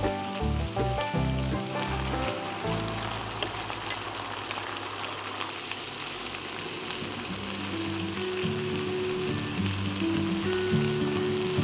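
Flaked salmon frying in a pan, a steady sizzle.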